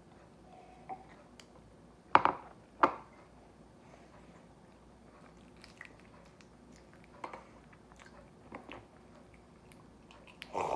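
A person eating Pokémon bread close to the microphone: quiet chewing, with two louder bites or lip smacks about two seconds in and a few faint clicks after.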